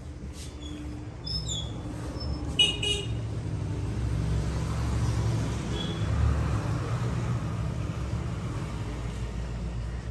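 Road traffic passing: a motor vehicle's engine rumble swells and then eases off, with a short horn toot about two and a half seconds in.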